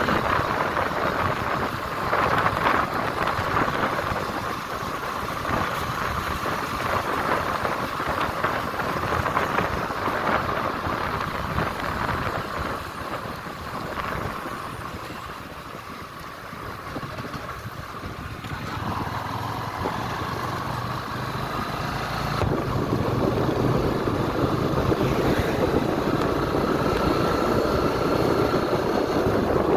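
Wind rushing over the microphone of a Honda CB300F Twister being ridden at town speed, with the bike's single-cylinder engine running underneath. The sound eases for a few seconds around the middle, then grows louder again toward the end.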